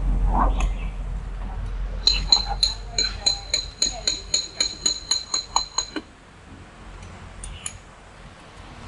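A hand tool working metal at the side of a bare diesel engine block: a run of about sixteen quick metallic clicks, about four a second, each with the same high ringing tone, starting about two seconds in and stopping about four seconds later. A low rumble fades out in the first two seconds.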